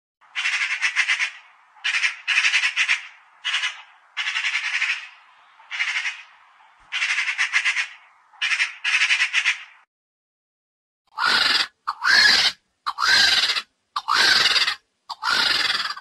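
Eurasian magpie chattering: about nine quick rattling bursts over the first ten seconds. After a brief gap come about six harsh, loud vulture calls in a row, each with a bending pitch.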